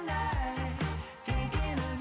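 Background music with a steady beat: bass line, drums and a melody.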